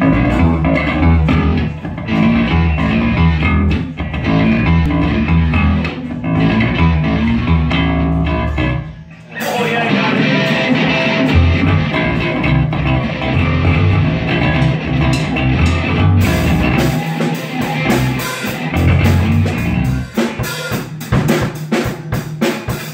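Live rock band playing an instrumental passage without vocals: an amplified electric bass, an electric guitar and a Tama drum kit. About nine seconds in the band stops briefly, then comes back in with more cymbal.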